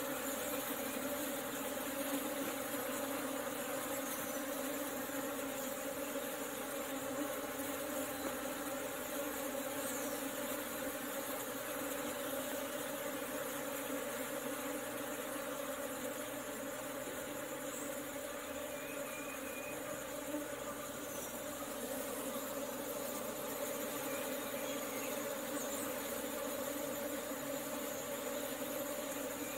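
A mass of honeybees buzzing steadily at close range, a low even hum that holds without break.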